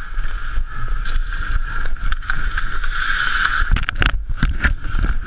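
Hockey skates on ice heard through a chest-mounted action camera, with rubbing and wind on the housing, then a quick cluster of sharp knocks of sticks and bodies colliding at close quarters about four seconds in.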